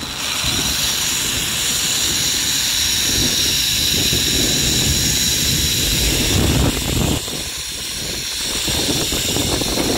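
Zipline trolley running down the steel cable just after launch: a steady hiss with a faint high whine from the pulleys, over a low rush of wind.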